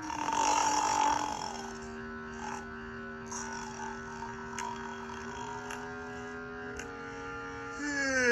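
A loud rasping snore in the first second or so, over soft background music of long held notes. A few faint clicks follow, and near the end a voice starts a long wavering moan that glides up and down in pitch.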